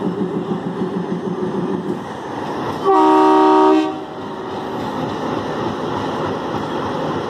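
Diesel locomotive engine running with a steady pulsing hum; about three seconds in the horn sounds once for about a second, a loud chord of several steady tones, then the engine runs on.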